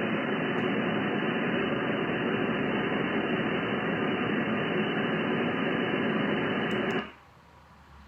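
HF radio receiver hissing with band noise and static on an empty band, with no signal coming through; the static comes from thunderstorms. The hiss cuts out suddenly for about a second near the end.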